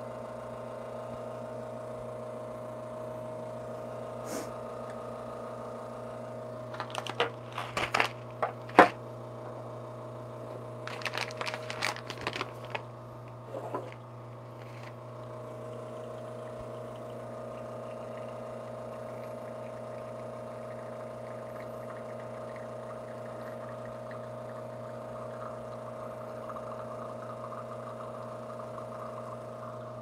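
Lelit espresso machine's pump humming steadily while it pulls a shot through a puck ground too fine, so the shot is choking and the espresso only trickles out. A scatter of sharp clicks and knocks comes about a third of the way in and again near the middle.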